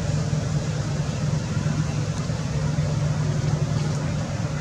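A steady low hum under a constant hiss, with no distinct events.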